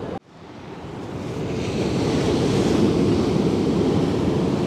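Steady rushing noise of ocean surf on a rocky shore, mixed with wind on the microphone. It cuts in just after the start and builds over the first two seconds.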